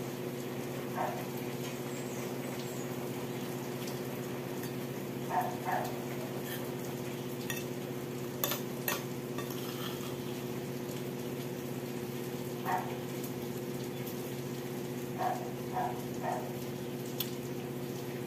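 Heavy rain falling, a steady hiss with a steady low hum beneath it. A few sharp clicks of a fork on a plate and some short soft sounds come and go over it.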